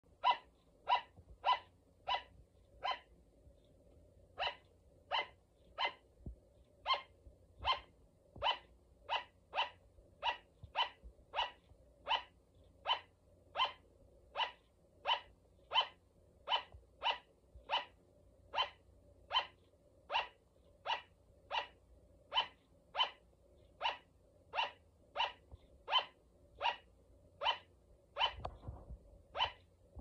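Sugar glider barking: short, sharp yaps repeated steadily about one and a half times a second, with a brief pause about four seconds in.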